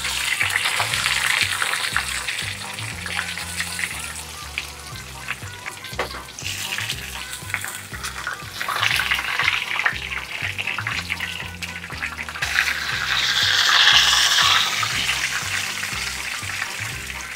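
Breaded basa fish fillet frying in rice oil in a pan, a steady dense sizzle and crackle that swells for a couple of seconds about thirteen seconds in as the fillet is moved in the oil.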